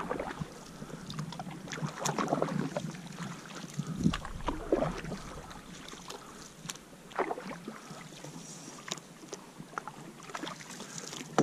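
Canoe paddling on calm water: paddles dipping and pulling through the water with irregular splashing and dripping, and a few sharp knocks, the loudest about four seconds in.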